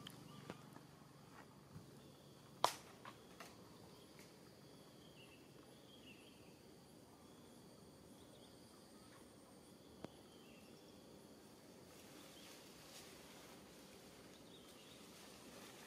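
Quiet outdoor ambience: a faint steady high insect drone with a few faint high chirps. Several sharp clicks break it, the loudest about two and a half seconds in, two smaller ones just after, and another about ten seconds in.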